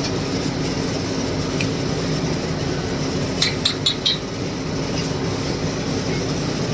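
Steady machine hum with background noise, and a quick run of four light metallic clinks about three and a half seconds in.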